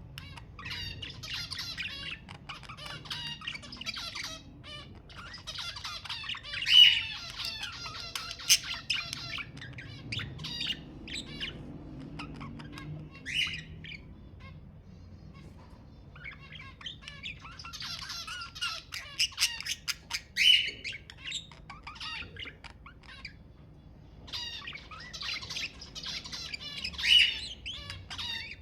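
Budgerigars chattering and warbling in bouts of a few seconds. A loud, sharp squawk stands out in each bout, and there are quieter pauses between the bouts.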